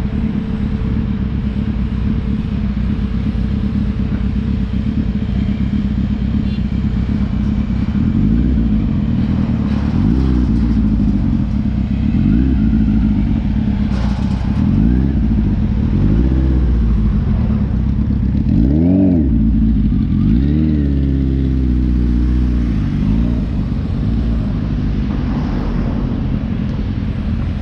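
Suzuki Hayabusa inline-four motorcycle engine idling steadily, then revved in several short rising-and-falling blips after about eight seconds.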